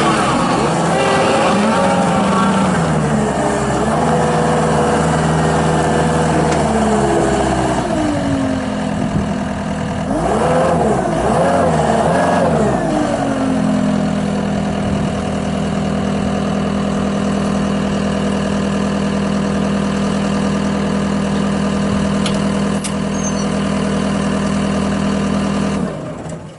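John Deere 331G compact track loader's diesel engine running under work, its pitch rising and falling for about the first half of the clip. It then holds steady at one speed and cuts off near the end.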